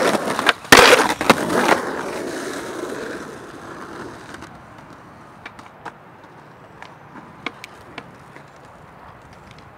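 Skateboard wheels rolling up, then a sharp pop and a quick run of loud clacks as the board strikes and lands about a second in. The wheels roll away and fade out a few seconds later, followed by a few faint clicks.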